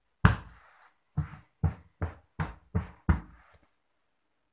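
A hand patting the padded, button-tufted velvet lid of a storage ottoman: about seven dull pats in quick succession, stopping about three and a half seconds in.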